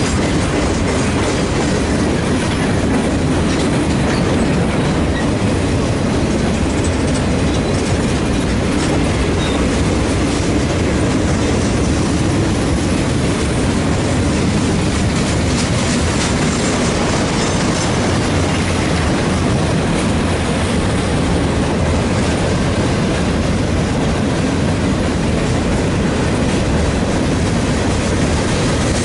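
Freight cars of a passing freight train rolling by close at hand: a steady rumble of steel wheels on rail with clickety-clack over the rail joints.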